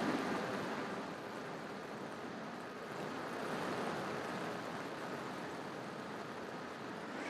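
Steady rushing wind noise with a faint steady hum beneath it, as of air streaming past a microphone in flight.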